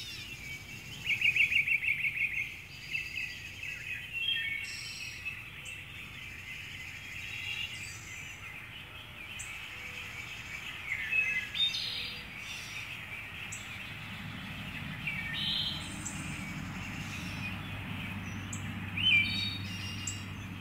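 Several birds calling and chirping, with a loud rapid trill about a second in and a scatter of short whistles and chirps after it. A low steady noise comes in about two-thirds of the way through.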